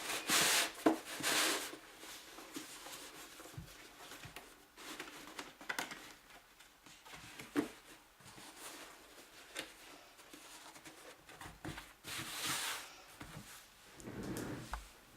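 Fabric rustling as it is handled, loudest at the start and twice near the end, with scattered sharp clicks every second or two, from cutting it with pinking shears.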